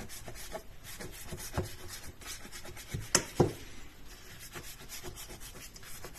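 Kitchen knife cutting through unbaked banitsa, layers of raw filo pastry and cheese in a metal baking tin: soft scraping and rubbing strokes, with two sharp clicks close together about three seconds in.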